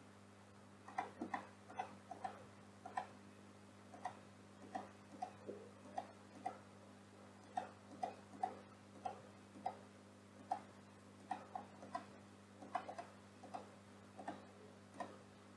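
Irregular clicking of a computer mouse and keyboard keys, a few clicks a second, starting about a second in. A steady low hum runs underneath.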